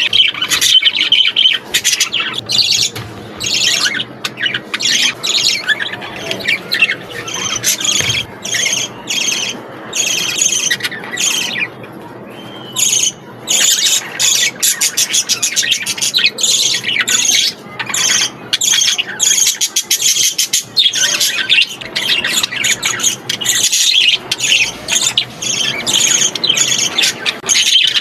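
Budgerigars chattering and chirping, a dense run of rapid high chirps and squawks with a brief lull in the middle.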